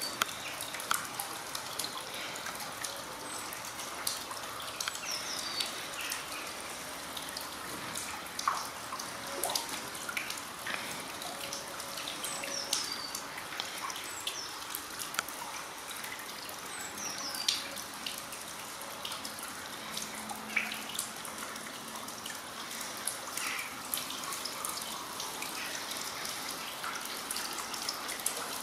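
Steady fine rain falling and dripping, with many single drops tapping close by. Short, faint bird chirps come through now and then.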